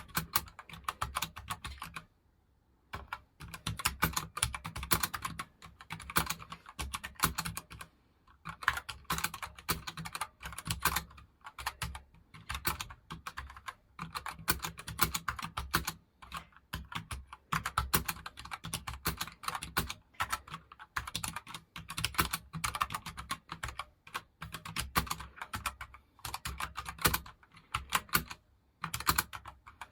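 Typing on a very light gaming keyboard: fast runs of key clicks, broken by brief pauses about two seconds in, about eight seconds in, and near the end.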